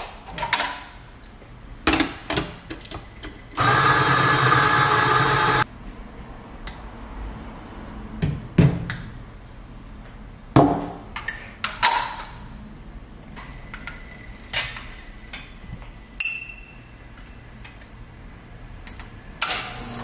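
Sharp metal knocks and clatter from an espresso portafilter and tools being handled, with an electric coffee grinder running steadily for about two seconds, about four seconds in; that grinder run is the loudest thing.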